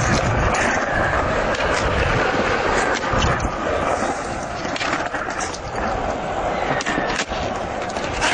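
Skateboard wheels rolling, a steady rolling noise with repeated sharp clacks of the board.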